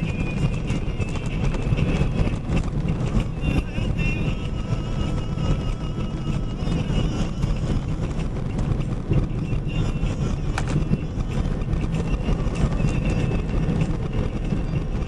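Steady road noise inside a box truck's cab while driving: a constant low rumble of engine and tyres.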